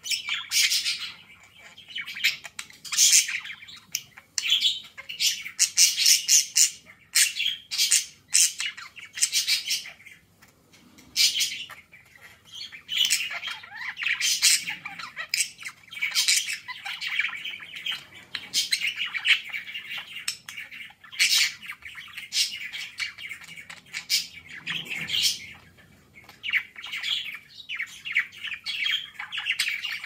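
A male budgerigar warbling to its reflection in a mirror: a nonstop stream of chatter laced with quick squawks and sharp clicks, with only brief lulls.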